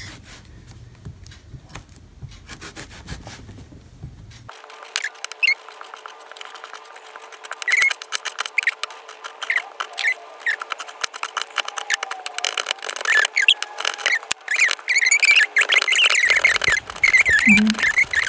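Chef's knife chopping an onion on a plastic cutting board: irregular knife taps, sparse and quiet at first, then quicker and louder as the dicing gets going about halfway through.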